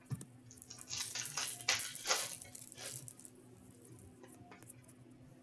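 Trading cards and foil pack wrappers being handled: rustling and crinkling for about three seconds, then only faint handling noise.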